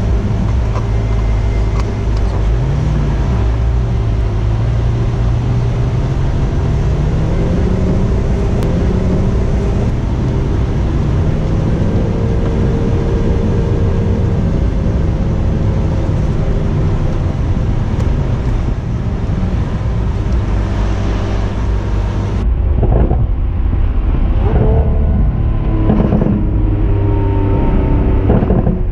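Lamborghini Aventador S Roadster's 6.5-litre naturally aspirated V12 running steadily while driving at moderate revs, its pitch rising and falling gently. In the last few seconds it gives sharper, quicker rises in revs with a few short sudden noises.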